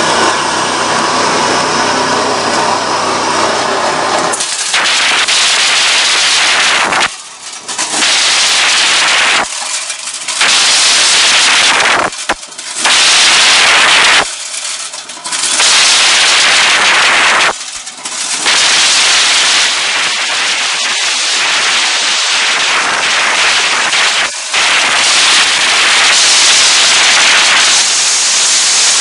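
Small electric corn sheller running: a steady motor hum at first, then about four seconds in a loud, dense rattling clatter of cobs being shelled, kernels pouring from the chute. The clatter drops away for a moment several times before picking up again.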